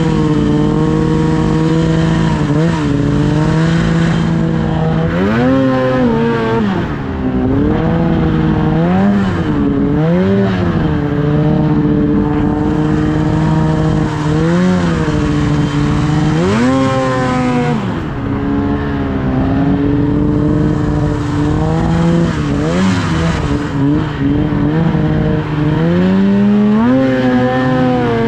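Ski-Doo snowmobile engine running hard under throttle, its revs held mostly steady and rising and falling several times as the rider works the throttle.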